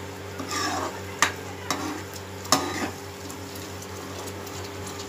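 Spatula stirring and scraping thick masala paste as it fries in oil in a nonstick kadhai, with a low sizzle throughout and a few sharper scrapes and knocks in the first three seconds. The paste is being fried (bhuna) until the oil starts to separate.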